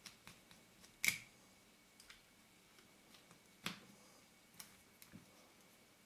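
Scattered small clicks and taps as camera-lens parts and small tools are handled during reassembly of an AF Nikkor 50mm f/1.4 D lens. The loudest click comes about a second in and has a brief metallic ring. A second strong click comes a little past the middle, with lighter ticks between.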